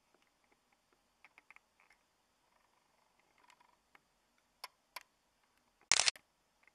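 Camera handling noise: scattered faint clicks and taps, then two sharper clicks about four and a half and five seconds in. About six seconds in comes a loud, brief crackling thump at a break in the recording. The airliner cruising high overhead is not heard.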